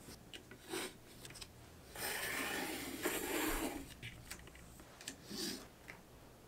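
Workbench handling sounds: a ruler and a strip of leather being set down and slid into place on a cutting mat. A few light knocks, and a longer rubbing scrape from about two to four seconds in.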